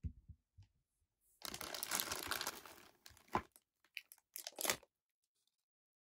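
Thin clear plastic packaging bag crinkling as a small figure part is worked out of it: a dense rustle for about a second and a half, then a few sharp crackles.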